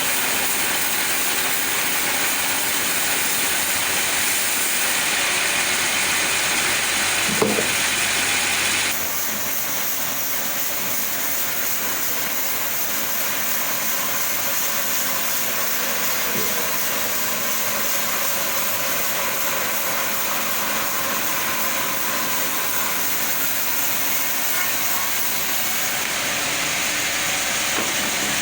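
Chainsaw running steadily while ripping lengthwise through a sapodilla log, a loud hissing noise throughout that shifts abruptly about nine seconds in.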